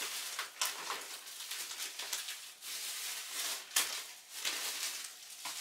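Plastic bubble wrap crinkling and rustling in the hands as it is unwrapped, with several sharper crackles.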